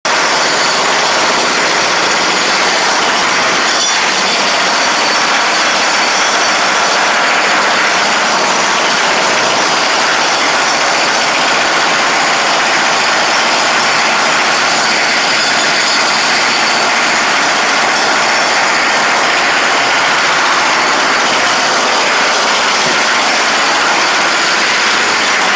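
Loud, steady machinery noise that runs without pause or change in pitch.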